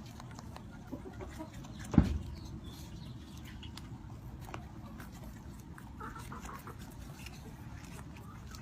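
Chickens clucking faintly over steady low background noise, with one loud thump about two seconds in.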